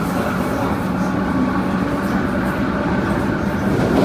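Adtranz-CAF MTR train with AEG GTO-VVVF traction running at a steady speed: a constant rumble of running noise with a level low hum from the traction equipment.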